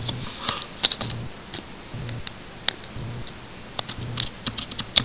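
Scissors snipping along the edge of a paper cutout: a series of short, sharp snips at an uneven pace, coming closer together near the end.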